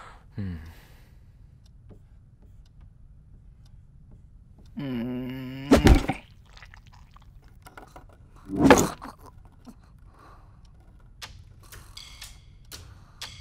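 Sparse cartoon sound effects over a quiet room. A vocal groan about a second long comes about five seconds in and ends in a sharp thunk, the loudest sound; a second thud follows near nine seconds, and a few faint clicks come near the end.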